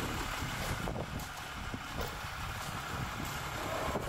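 Pickup truck towing a loaded snowmobile trailer, its engine running with a steady low rumble as it drives slowly past.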